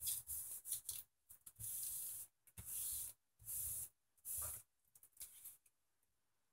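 Hands rubbing over a folded sheet of paper in four short strokes, after a few light rustles and taps, pressing the paper down onto paint-soaked strings inside for string-pull painting.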